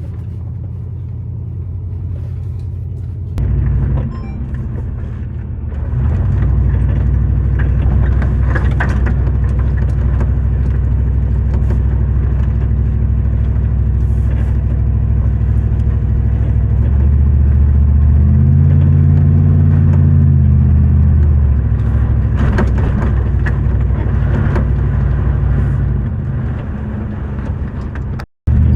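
Vehicle engine running while driving, a steady low drone that rises in pitch and falls back about two-thirds of the way through. The sound cuts out for a moment near the end.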